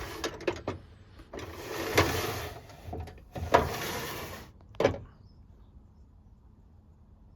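Tool drawers sliding open and closed, two sliding runs of about a second each, then a single sharp knock about five seconds in.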